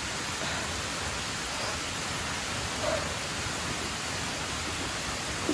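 A steady, even hiss with no distinct events, like rain, wind or running water.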